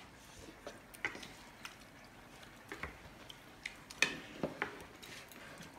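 Metal cutlery lightly clinking and tapping against china plates and bowls as food is served, a few scattered clicks.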